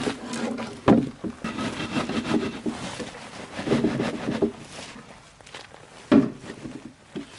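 Handling noises: a sharp knock at the start, another about a second in and a third near the end, with rubbing and scraping in between.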